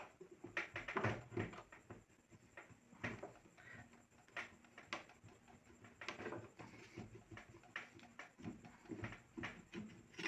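Seized presser bar of a hand sewing machine being twisted back and forth with a steel handle clamped onto it: irregular metal scrapes, creaks and clicks as the tight bar is worked loose and up out of its bracket.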